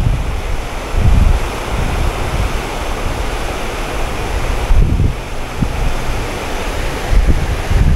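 Wind buffeting the microphone: a steady rushing noise with heavier low gusts about a second in, around five seconds and again near the end.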